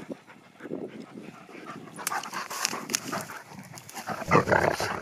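Two dogs play-fighting on grass, panting and scuffling, with a louder burst of noise about four seconds in.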